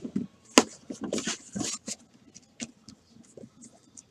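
Hands handling trading-card boxes and packaging on a table: a sharp tap or click, then a spell of rustling, followed by a few small scattered ticks.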